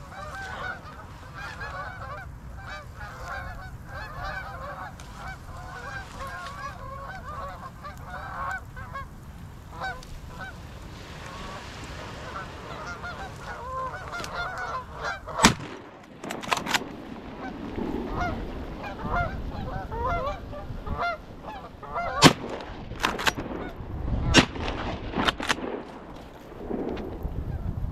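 Geese honking over steady wind noise through the first half. About halfway through, a single shotgun shot, then several sharp clicks and knocks.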